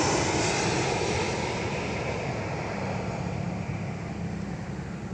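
An aeroplane flying low overhead, its engine noise fading steadily as it moves away. A low steady hum comes in about halfway through.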